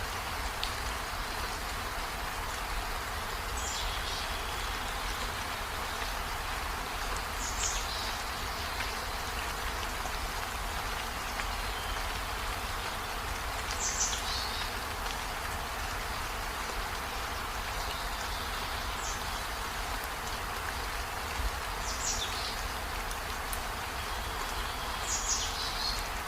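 Steady rain-like hiss of falling water with a bird's short high calls, each sweeping downward, about six times a few seconds apart.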